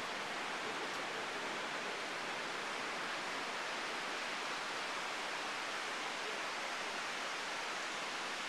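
Steady, even rush of distant ocean surf.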